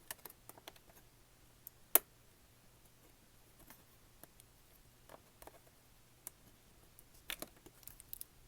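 Small scattered clicks and taps of a tool on the opened tablet's internals, as the battery connector is being unplugged, with one sharp click about two seconds in and a quick run of clicks near the end.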